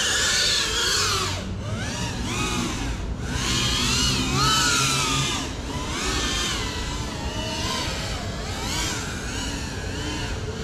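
FPV cinewhoop drone's motors and ducted propellers whining, the pitch rising and falling again and again as the throttle moves, over a steady hiss.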